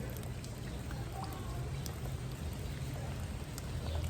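Steady rain falling, with scattered drops ticking sharply over a low, steady rumble.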